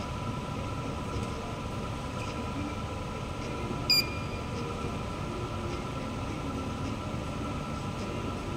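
Steady background hum of a large indoor badminton hall, with a faint constant whine in it. About four seconds in, one short, sharp squeak stands out above it.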